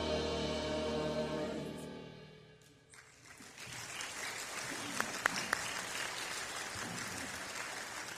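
Church choir holding the final chord of an anthem, which fades out about two and a half seconds in; then the congregation applauds.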